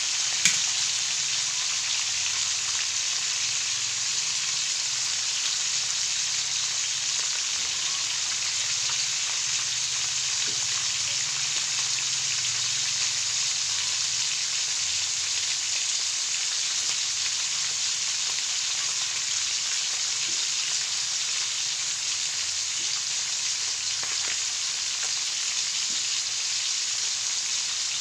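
Whole fish shallow-frying in hot oil in a wok: a steady sizzle and crackle of oil around the fish. There is one sharp click about half a second in.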